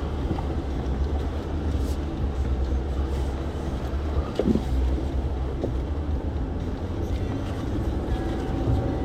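Jeep Willys engine running at low revs in low range, crawling over rocks, with a steady low rumble. A couple of brief squeaks come about halfway through.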